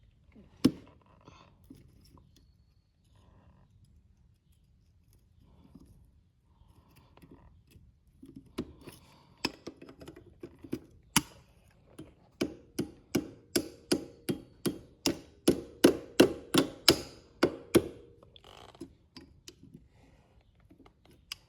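Metal tapped against metal: a few scattered knocks, then a steady run of sharp ringing strikes about two a second, loudest near the end, as a cotter pin is worked loose from a three-wheeler's front axle bolt.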